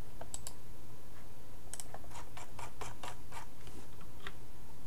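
Light, irregular clicks from working a computer at a desk: two near the start, then a quick run of about a dozen between about two and four and a half seconds in, over a steady low hum.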